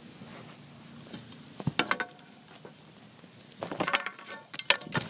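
Close handling noise: two bursts of rustling, clicking and clattering as a fishing net is worked against a white container, the first about two seconds in and a longer one near the end.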